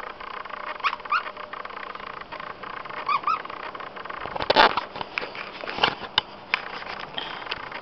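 A dog chewing a plush toy and squeezing its squeaker: short rising squeaks in two quick pairs, about a second in and about three seconds in. Around the middle comes a louder burst of rough rustling and chewing noise, followed by scattered clicks.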